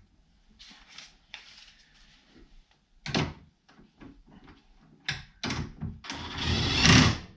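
Hand ratchet with a 19 mm socket clicking through strokes as the steering wheel hub nut is tightened onto the column. Scattered short bursts come first, then the strokes grow louder, ending in a loud, longer run of clicking near the end.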